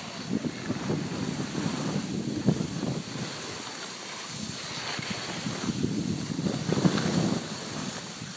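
Wind buffeting the microphone of a skier on the move, mixed with the crackling scrape of skis on packed snow; it swells from about five seconds in and eases near the end.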